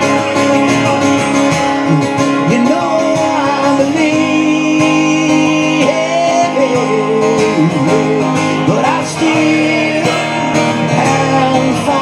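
A man singing while playing an acoustic guitar, a live solo acoustic performance with the voice carrying a continuous melody over the guitar.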